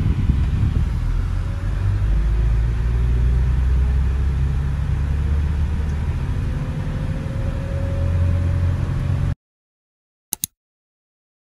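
Loud low rumble of a vehicle in motion, with a faint tone rising in pitch as it gathers speed. It cuts off abruptly near the end, leaving silence broken by one short click.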